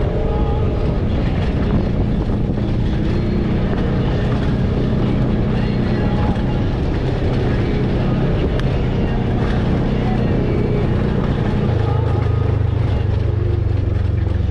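Polaris RZR side-by-side's engine running steadily while driving along a dirt track. About twelve seconds in, its note drops lower.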